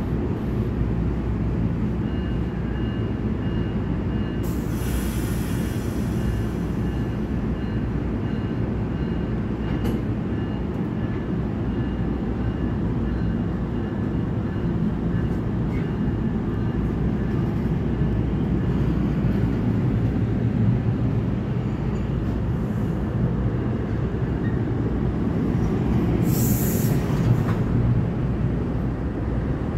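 NJ Transit Bombardier bilevel commuter train pulling out of the station, its coaches rolling past with a steady low rumble. A burst of air hiss comes about five seconds in, a faint high whine runs through the first half, and a brief high-pitched hiss comes near the end.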